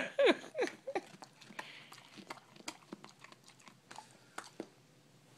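A dog crunching a raw carrot: sharp crunches, dense at first, then spacing out and stopping shortly before the end.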